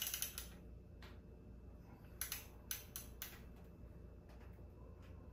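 Faint metallic clicks and clinks from hex bits and tools being turned by hand to tighten fork slider bolts on a motorcycle's front axle, in several short clusters.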